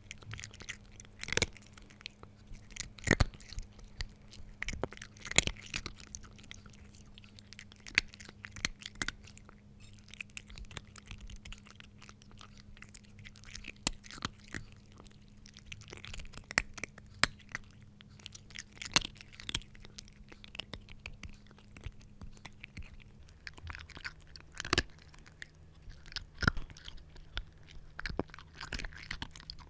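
A cat eating dry kibble: irregular sharp crunches as the pieces break between its teeth, with bursts of quicker chewing between louder single bites. A faint steady low hum sits underneath.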